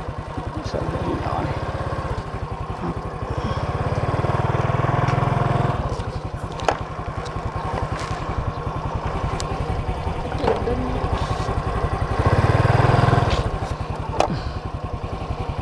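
Small motorcycle engine idling, steady fast pulsing, with its revs rising twice for a second or two.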